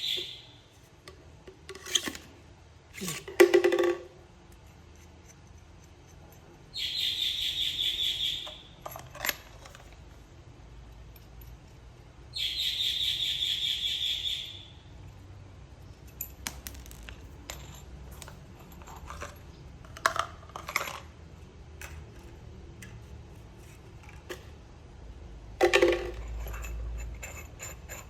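Metal parts of a concrete hole saw drill bit set clinking and knocking as they are handled. There is a louder cluster of knocks about three seconds in, and two high rasping sounds of about two seconds each, one about seven seconds in and one about twelve seconds in.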